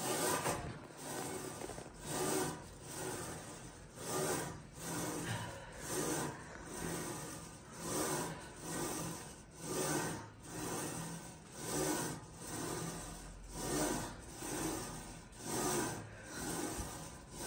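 A woman's heavy, rasping breaths in time with barbell split squats: a strong breath about every two seconds with a softer one between.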